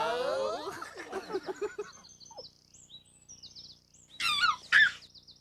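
A drawn-out, wavering voice trails off in the first second. Then birds chirp high and quiet, with two louder falling whistled calls near the end.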